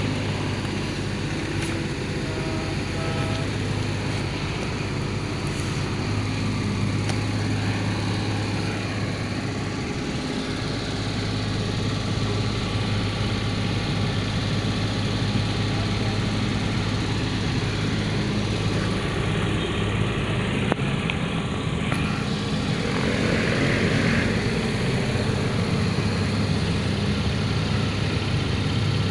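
Mini excavator's diesel engine running steadily with a low, even drone, and a brief rush of noise late on.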